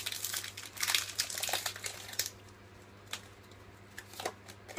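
Foil wrapper of a Pokémon booster pack crinkling as it is handled and opened, for about the first two seconds. Then it goes quieter, with a few light clicks of the cards being handled.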